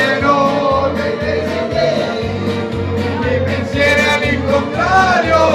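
Two men singing karaoke into microphones over a backing track with a steady, repeating bass line.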